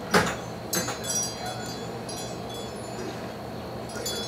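Light metallic chime tones ringing on and off, with a sharp knock just at the start and a couple of smaller strikes within the first second or so.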